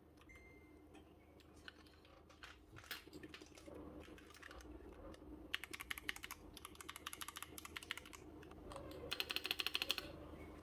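Keys of a Zifriend ZA68 mechanical keyboard being pressed, clicking: scattered single key presses at first, then fast runs of typing around the middle and again near the end.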